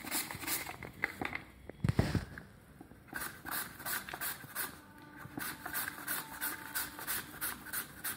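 A potato being slid back and forth over a mandoline slicer's blade, short rasping strokes in a steady rhythm of about three a second. A louder thump comes about two seconds in.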